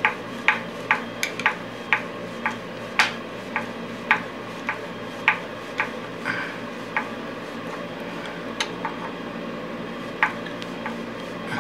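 Light, sharp clicks or ticks, about two a second, slowing and thinning out after about seven seconds, over a steady low hum.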